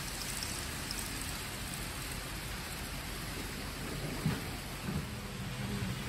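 N-scale model train running on layout track, a steady rolling hiss. A single click comes about four seconds in, and a faint low hum rises near the end.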